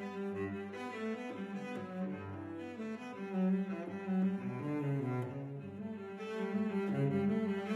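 Background music of bowed strings, with a cello playing sustained low notes that change every second or so.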